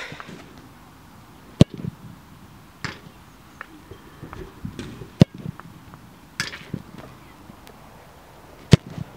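Football kicked hard three times in a row, sharp strikes about three and a half seconds apart, each followed by a fainter knock, with light footsteps on artificial turf between them.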